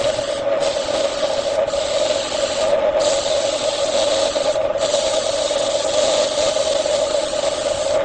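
Wood lathe running, with a steady rubbing scrape against the spinning wood. The scrape eases off briefly about four times.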